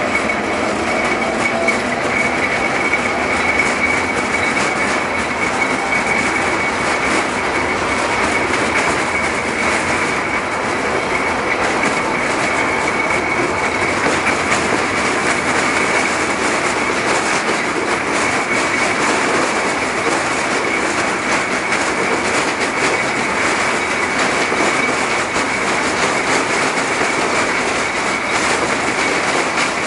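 LM-68M tram running steadily along the rails: continuous wheel-on-rail rumble with a thin, steady high-pitched squeal from the wheels.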